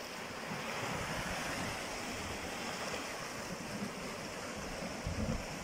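Sea surf washing over shoreline rocks: a steady rushing hiss of breaking waves, with a couple of low thumps about five seconds in.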